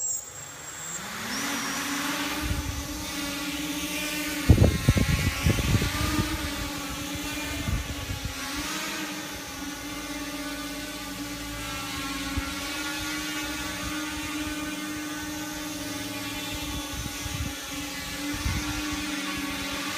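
Quadcopter's electric motors and propellers spinning up about a second in, then a steady high buzzing whir that wobbles slightly in pitch as it flies. Around four to six seconds in comes a stretch of irregular low buffeting, the loudest part.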